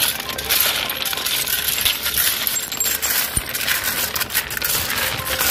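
Crushed-stone railway track ballast clinking and clattering as it is scraped and shifted by hand around the sleepers, a dense run of sharp stony clicks.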